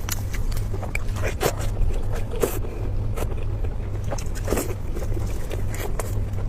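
Close-miked eating: irregular wet chewing and lip-smacking clicks, several a second at times, over a steady low hum.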